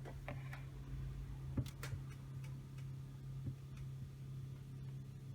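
A steady low hum with a few light clicks and taps scattered over it; the sharpest is a pair of clicks about two seconds in.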